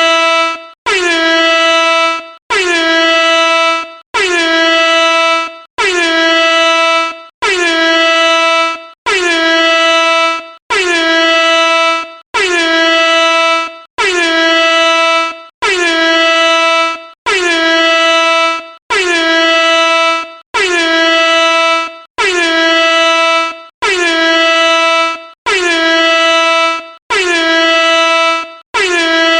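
Air horn sounding in a long, even series of blasts, about one every 1.6 seconds, each lasting around a second and a half with a short silent gap between. Each blast bends down slightly in pitch as it starts, then holds one steady, loud tone.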